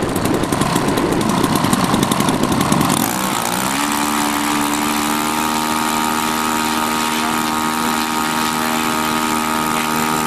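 Twin petrol engines of a large radio-controlled B-25 Mitchell model running on the ground. They run fast and rough for about three seconds, then are throttled back to a steady idle.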